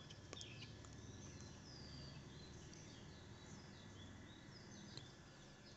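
Near silence: faint steady room hum with distant birds chirping, many short quick chirps.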